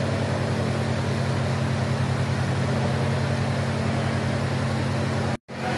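A steady low machine hum over an even hiss, with no change in pitch; it cuts out for an instant near the end.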